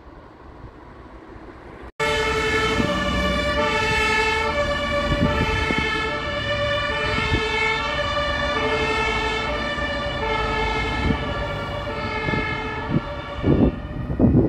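German two-tone emergency vehicle siren (Martinshorn) alternating between a low and a high pitch. It cuts in suddenly about two seconds in over quieter traffic noise. Near the end, wind buffets the microphone with a few heavy thumps.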